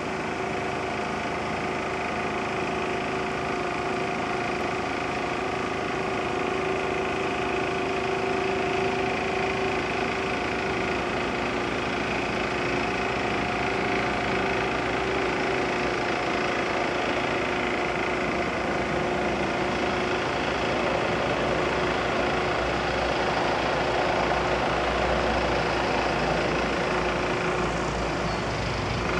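Engine of a TZ-4K-14 small tractor running at a steady speed as it drives along the road.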